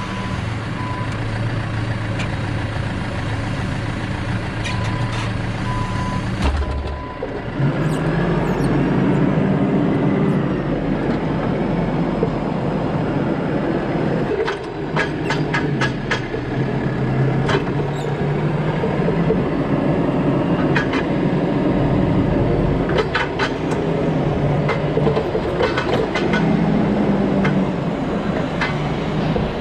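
Forklift engine running, with a reversing beeper sounding in short beeps during the first few seconds. About seven seconds in, the engine speeds up and runs louder, with scattered clicks and knocks over it.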